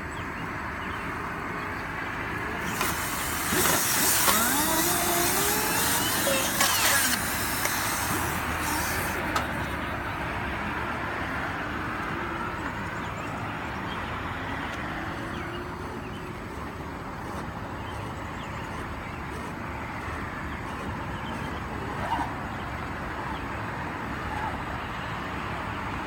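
Compressed-air dryer-vent cleaning tool, a high-velocity reverse-spinning ball on an air hose, running inside a dryer vent duct to blow lint out: a steady rush of air, with a louder hiss from about three to nine seconds in and a few tones sliding up and down.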